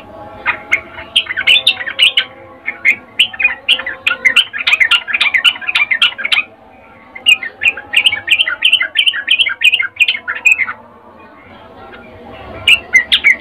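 Yellow-vented bulbul (trucukan) giving rapid, chattering calls, about four or five short notes a second, in three bursts. This is the female's courtship call used to lure males.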